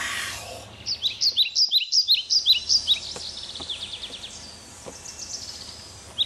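A short yell at the start, then a songbird chirping over and over: quick, high, down-slurred chirps several times a second, broken by fast trills.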